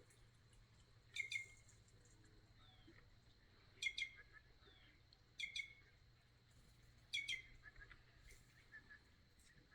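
Birds known locally as quem-quem calling: four short, sharp calls, each a quick double note, spaced a couple of seconds apart.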